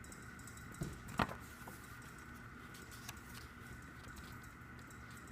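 Quiet handling of a paper photo booklet, with two short taps or page rustles about a second in and a few faint ticks after, over a steady faint hum.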